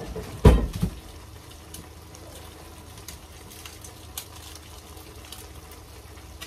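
A knock, with a smaller one just after, about half a second in, then a steady watery hiss of liquid in a kitchen with a few faint clicks.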